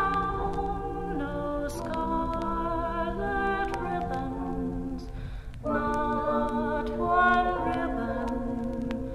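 Women's a cappella group singing held chords in close harmony, with a short break about five seconds in before the chords resume. A low hum and a few clicks of record surface noise run under the voices on the 1961 LP.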